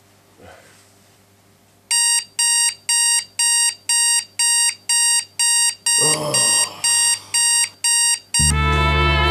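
Digital alarm clock beeping in a steady series, about two beeps a second, starting about two seconds in after a short quiet stretch. A brief rustle comes through the beeps around six seconds, and near the end the beeping stops and loud music starts abruptly.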